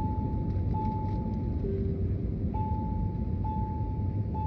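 Airliner cabin chime sounding as a series of held tones, a higher tone repeated three times then one lower tone, the pattern starting over, over the steady rumble of the cabin in flight.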